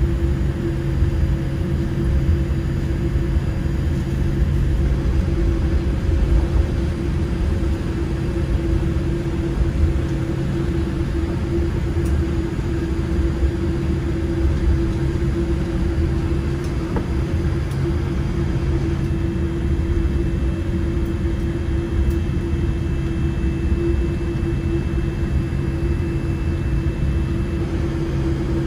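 Steady cabin noise inside a Boeing 787-8 airliner: a low jet engine and airflow rumble with a constant hum over it. A faint high tone joins about two-thirds of the way through.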